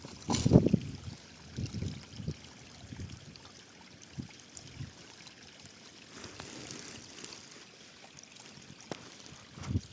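Steady rush of running water, with a loud thump about half a second in and a few softer knocks after it.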